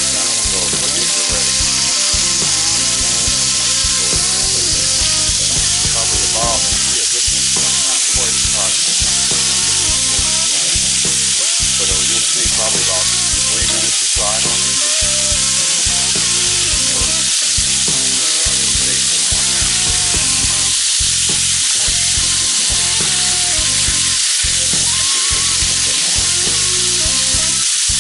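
Venison tenderloin steaks sizzling steadily in a hot, buttered cast-iron grill pan as they are seared and turned over with tongs.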